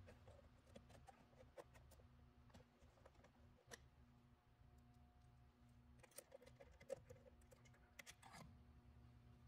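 Near silence with scattered faint clicks and rustles of cables and plastic connectors being handled inside an electrical control panel.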